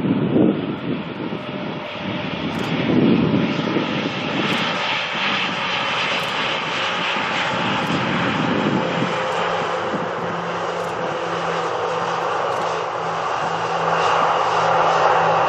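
Jet airliner on landing approach flying past, its engine noise continuous and growing a little louder near the end. Wind gusts buffet the microphone in the first few seconds.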